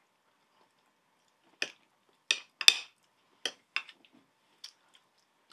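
Metal cutlery clinking and scraping against a ceramic dish: about seven short, sharp clinks spread over three seconds, starting about a second and a half in.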